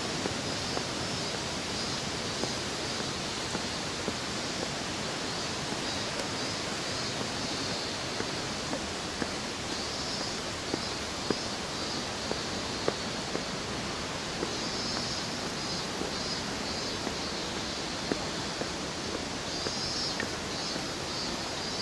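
Steady outdoor rushing noise, with groups of high, rapidly pulsing chirps around the middle and near the end, and faint scattered ticks.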